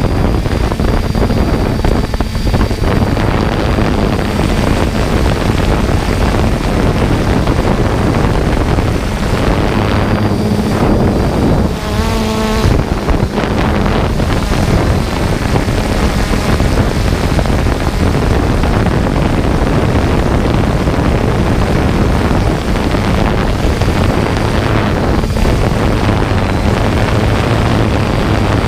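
Quadcopter drone in flight: a steady propeller and motor hum under heavy wind noise on the microphone, with a brief buzzing tone about twelve seconds in.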